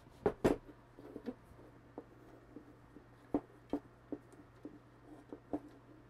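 Irregular clicks and light knocks from a 3D printer part being handled and fitted by hand. A loud pair comes about half a second in, with scattered single taps later, over a faint steady low hum.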